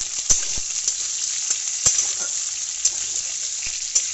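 Raw green banana and potato pieces sizzling steadily as they fry in hot oil in a metal kadai, while a metal spatula stirs them, clicking and scraping against the pan about seven times.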